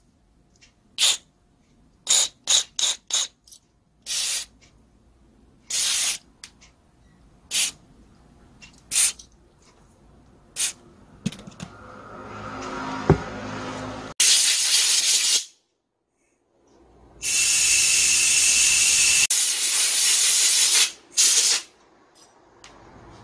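Aerosol cleaner sprayed onto disassembled brush-cutter carburetor parts to clean off built-up grime: a series of short hissing bursts, some in quick succession, then two longer, louder sprays in the second half.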